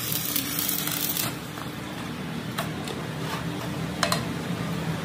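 Stick (arc) welding on a truck's rear axle housing, the arc crackling and hissing, then breaking off about a second in. A few light clicks follow.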